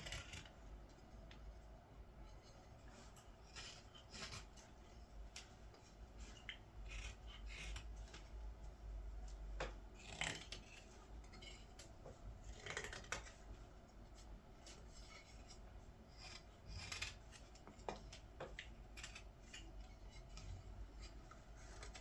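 A carving blade shaving green wood, faint and irregular: a ladle being hand-carved in short cutting and scraping strokes, with a few sharper slicing cuts around ten, thirteen and seventeen seconds in.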